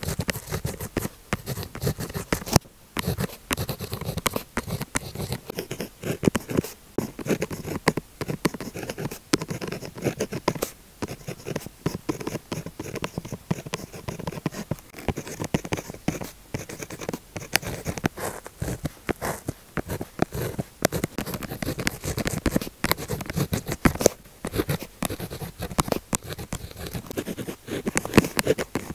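Pilot Juice Up gel pen tip scratching across paper in quick writing strokes, with frequent short sharp ticks.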